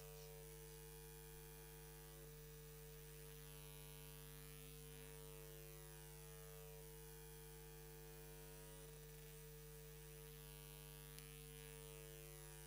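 Near silence apart from a steady electrical mains hum, with a faint click near the end.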